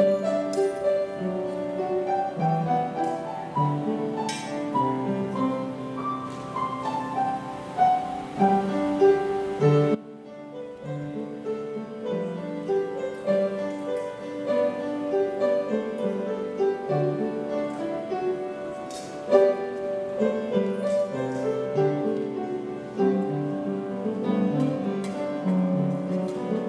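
Slow instrumental music led by piano, a continuous run of notes that drops in level about ten seconds in and then builds again.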